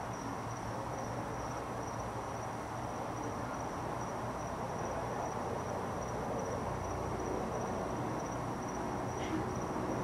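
Crickets chirping: a steady, finely pulsing high trill over an even background hum.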